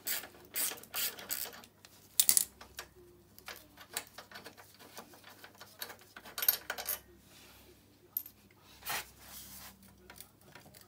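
Ratchet wrench clicking in quick strokes for the first second or so, then scattered metallic clanks and knocks as tools and moped exhaust parts are handled. The loudest knocks come about 2 s and 6.5 s in.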